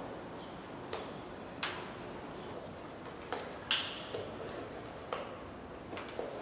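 A lace being pulled out through the metal eyelets of a leather Dr. Martens shoe, giving a handful of sharp clicks at irregular intervals as the lace and its tip knock against the eyelets.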